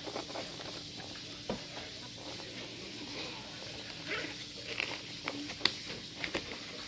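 Handling noise from a zippered gimbal carrying case: light rustling and scattered sharp clicks as a hand works the case lid's mesh pocket and pulls paper instructions out of it.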